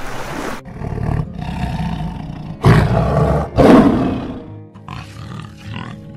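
Lion roaring twice, about a second apart near the middle, over background music.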